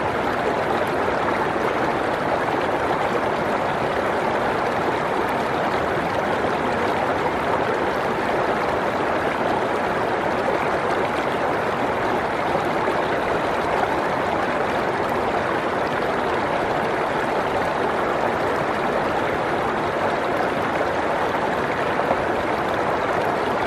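Mountain stream rushing steadily over rocks, an even unbroken sound of flowing water.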